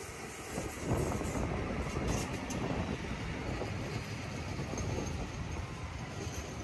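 Alstom Citadis 305 light rail tram running along the track, a steady running noise that grows louder about a second in.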